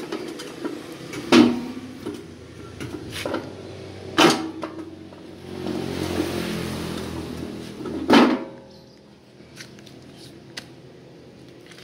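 Handling noise around a steel grass-chopper machine: three sharp metallic knocks with a short ring after each, about three to four seconds apart, with lighter clicks and clatter between them. A low rumble swells and fades between the second and third knock.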